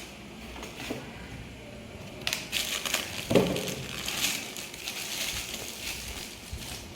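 Cardboard box and plastic packaging being opened and handled: crinkling, crackling rustles start about two seconds in, with a thump about a second later.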